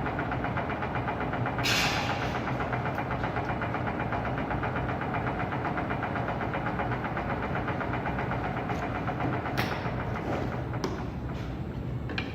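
Webo Varia 25 pillar drill running, its motor and geared head giving a steady mechanical hum with a fast, even ticking. A brief loud hiss comes about two seconds in, and there are a few sharp clicks near the end.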